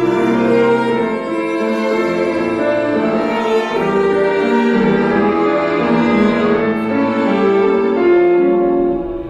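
Music: bowed strings, violin and cello, with piano, playing a slow melody of long held notes that change every second or so.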